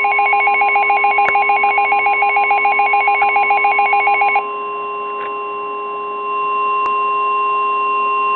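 NOAA Weather Radio warning alarm tone: a steady, loud single high tone that cuts off abruptly at the end, the signal that a warning message is about to be read. For the first four and a half seconds a rapid electronic beeping of about ten beeps a second sounds over it, then stops.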